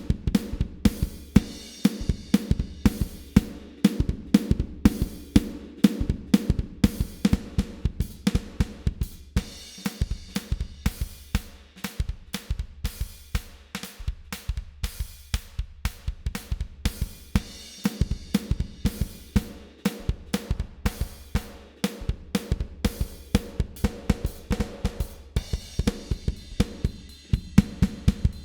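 Recorded drum kit groove (kick, snare, hi-hat and cymbals) played through an Allen & Heath GL2400 analog console with its low-mid bell EQ boosted and being swept in frequency, so the drums' midrange colour shifts, thinning about halfway through.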